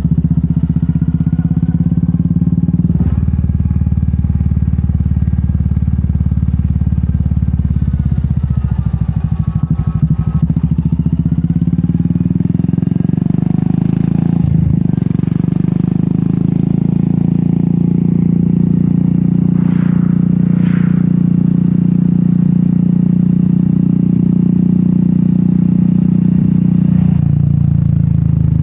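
Royal Enfield Meteor 350's single-cylinder engine running under way through an aftermarket sport exhaust. Its note drops sharply three times, about three seconds in, midway and near the end, like gear changes, and sags in pitch for a couple of seconds around ten seconds in.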